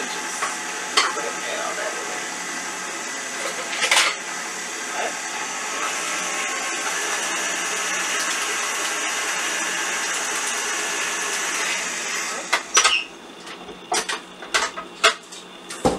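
KitchenAid stand mixer running at a steady speed, beating coconut pie filling in its steel bowl, with a few sharp clicks over the motor. The motor stops about twelve seconds in and is followed by several separate knocks and clatters.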